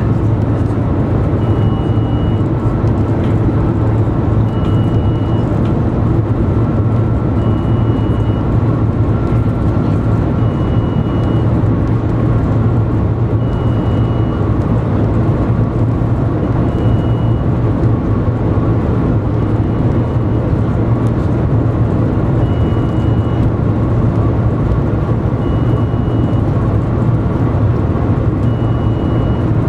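Steady loud cabin noise inside the Shanghai Maglev train running at top speed, 400 to 430 km/h, a dense low rumble with no let-up. A short faint high beep repeats about every three seconds.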